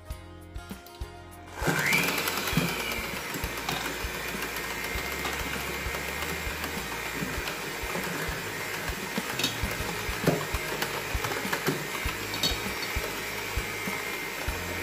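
Electric hand mixer switched on about a second and a half in, its motor whine rising quickly and then running steadily as the beaters mix flour into cake batter in a metal bowl, with occasional light clicks.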